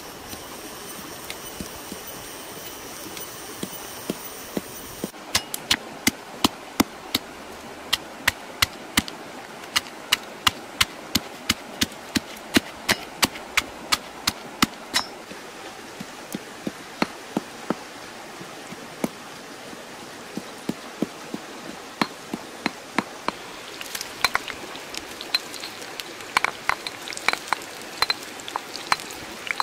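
Stone pestle pounding red chilies and garlic in a stone mortar: sharp knocks about two to three a second, thinning out after the middle. Near the end, the chili paste sizzles and crackles in hot oil in a flat pan.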